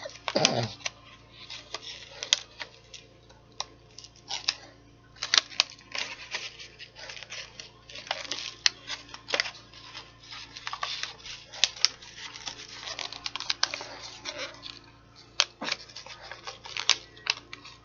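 Chocolate bar wrapper crinkling and crackling as it is handled and pulled open, in irregular sharp crackles.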